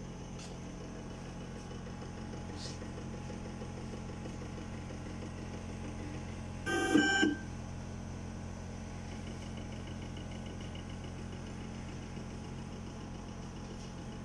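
Sirona inLab MC XL dental milling unit running its calibration cycle: a steady machine hum, with one short louder tone lasting about half a second near the middle.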